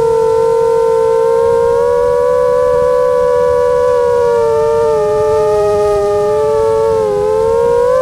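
Nazgul Evoque F6 FPV quadcopter's brushless motors and propellers whining in flight, one steady tone that wavers slowly with the throttle. The pitch sags to its lowest about seven seconds in, then climbs again near the end.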